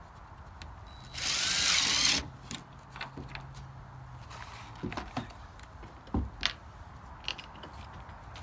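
Power drill running in one short burst of about a second, its motor whine sweeping, followed by a few scattered knocks and clicks.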